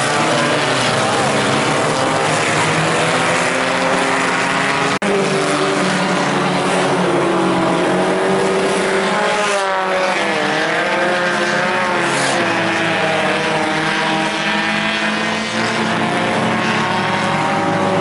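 Several IMCA Sport Compact race cars' four-cylinder engines running hard together, their pitches rising and falling against each other as the cars go through the turns. There is one abrupt, momentary break in the sound about five seconds in.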